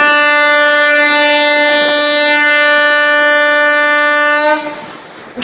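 One long, loud, steady blast of a train-style horn at a single held pitch, cutting off about four and a half seconds in.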